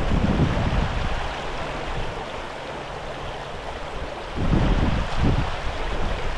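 Shallow river water rushing over a gravel bar, a steady hiss, with low gusts of wind buffeting the microphone at the start and again from about four and a half seconds in.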